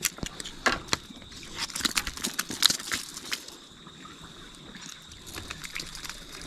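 Irregular light clicks and rustling from a landed rainbow trout being handled and unhooked.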